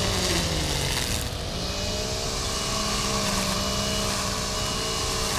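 A motor vehicle's engine running at low speed, its pitch sagging and rising gently, over a steady rush of wind or road noise.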